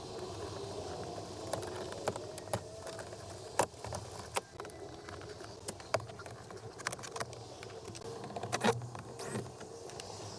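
Scattered clicks and light knocks of hand work on a car's rear door, the sharpest about three and a half seconds in and again near nine seconds.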